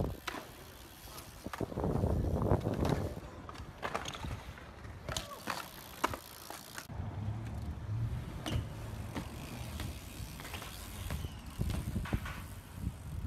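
BMX bikes rolling and riding on concrete, with scattered sharp clicks and knocks from the bikes hitting the ground and ledges.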